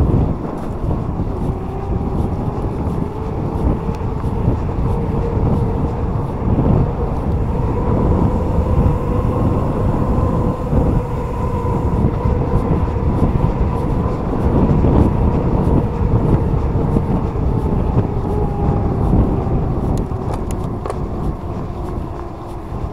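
Wind rushing over the microphone and tyres rumbling on a tarmac path, with the steady whine of an e-bike's electric motor over it. The whine climbs a little in pitch and sinks back toward the end, and a few light clicks come near the end.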